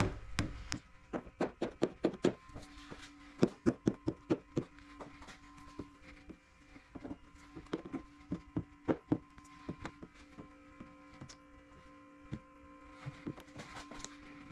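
A series of short, sharp clicks and scrapes, several a second in bursts, as a hand squeegee is pressed and drawn over wet paint protection film on a car hood. A faint steady hum sets in a few seconds in.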